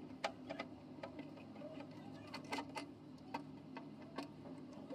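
Faint, irregular clicks and ticks of a screwdriver and screws as the screws are worked out of an inverter's casing, over a low steady hum.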